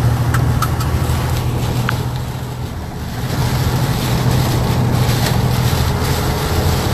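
Truck engine running with a steady low drone, heard from inside the cab, under a constant hiss of storm wind. A few sharp ticks sound in the first two seconds.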